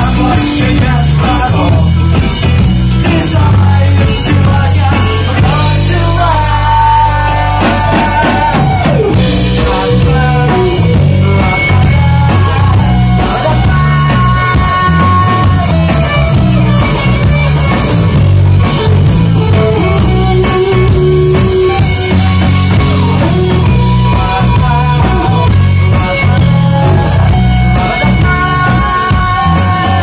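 A rock band playing loud and live: drum kit, bass and electric guitar, with a melody line that holds and bends in pitch.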